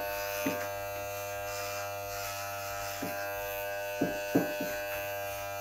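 Corded electric hair clippers running with a steady buzz while cutting short hair, with a few short ticks over the buzz.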